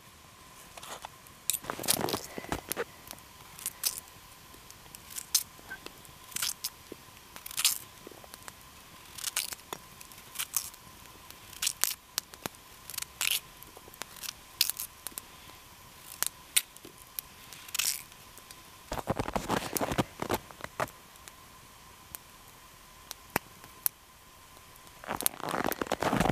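Wood campfire crackling, with sharp irregular pops about once or twice a second. Two denser, longer stretches of scraping and crunching noise come around 19 seconds in and again near the end.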